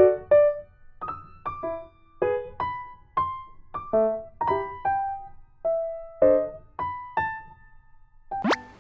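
Background music: a simple melody of single struck notes, about two a second, each fading quickly, with a fast rising sweep near the end.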